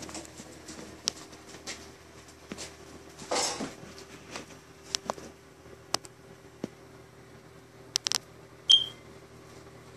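Handling noise from a handheld phone being moved around a cluttered room: scattered clicks and taps and a short rustle about three seconds in, over a steady low hum. Near the end comes the loudest sound, a sharp click with a brief high chirp.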